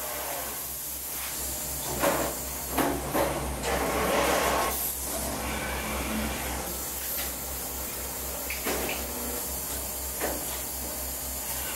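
Automated solar-module production machinery running: a steady low hum with a few clunks and knocks, and a short rush of air hiss about four seconds in.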